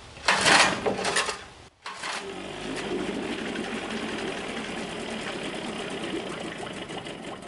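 1967 Evinrude 3 HP two-stroke outboard motor pull-started with the choke on: one yank of the recoil starter cord, then about two seconds in the engine catches and runs steadily at a fast, even rattle until it drops away near the end.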